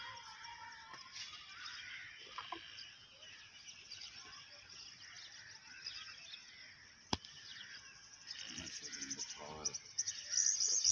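Faint outdoor background of small birds chirping, busier and louder near the end, with faint voices in the distance and a single sharp click about seven seconds in.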